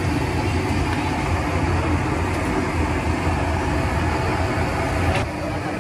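Steady roadside street noise: a continuous low rumble with a hiss, typical of traffic passing a street-food stall. A sharp click comes about five seconds in, after which it is slightly quieter.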